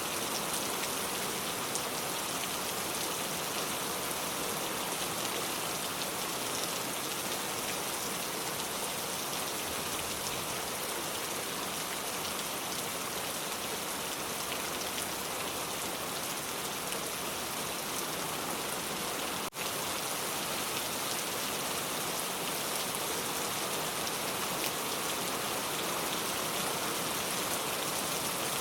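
Steady rain falling, an even hiss with scattered small drop ticks. The sound dips out for a split second about two-thirds of the way through.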